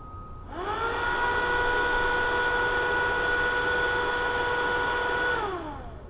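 Buell XB motorcycle's electric engine cooling fan, switched on by the ECM's fan test. It spins up with a rising whine about half a second in, runs at a steady pitch for about five seconds, then winds down near the end.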